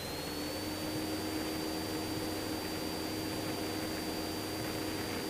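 Cessna 172's piston engine and propeller running steadily at full power during the takeoff roll, heard from inside the cabin as a steady hum. A thin high whine climbs slightly in pitch at the start and then holds steady.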